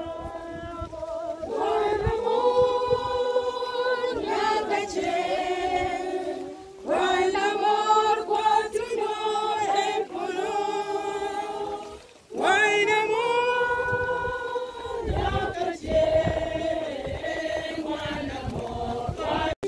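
A group of mourners singing a funeral song together in long held phrases, with brief breaks about seven and twelve seconds in.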